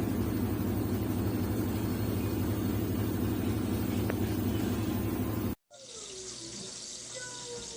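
Water rushing steadily into a washing machine tub as it fills, with a low hum under it; the sound cuts off abruptly about five and a half seconds in, leaving a much quieter background.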